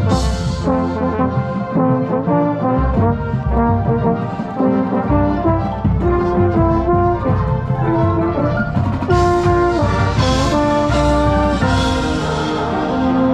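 Marching band playing a brass-heavy passage, with a trombone right beside the microphone and the rest of the band and percussion around it. The notes change steadily throughout, with low drum hits and crashing cymbals in the second half.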